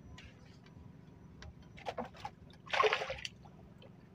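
Water splashing briefly: a small splash about two seconds in, then a louder one lasting about half a second, with faint scattered clicks and knocks around them.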